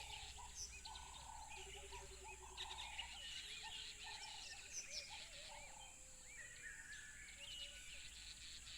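A chorus of wild birds singing and chirping at once: many short, high chirps and whistled glides overlap, with lower repeated calls underneath and a steady faint hiss behind them.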